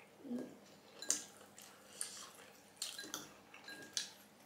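Close-miked eating: wet chewing and mouth smacks while eating momos, with a sharp click or smack about once a second.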